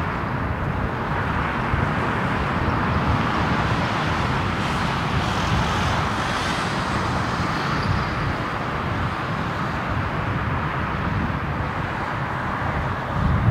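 Airbus A319 twin-engine jet airliner at takeoff thrust, heard from a distance as a steady roar during its takeoff roll and liftoff. The roar gets louder near the end.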